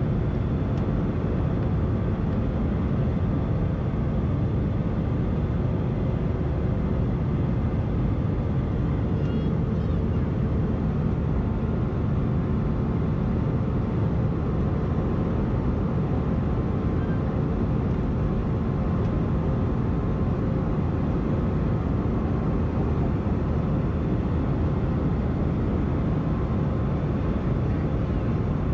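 Steady cabin noise inside an Airbus A320-214 in flight: the even low rumble of its CFM56 engines and the rush of air past the fuselage, with a few faint steady tones above it.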